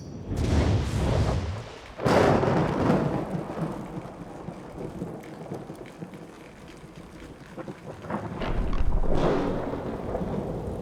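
Thunderstorm sound effect: rolling thunder over steady rain, played back through a sound system. There is a burst just after the start, a sharp crack about two seconds in, and a long, deep rumble near the end.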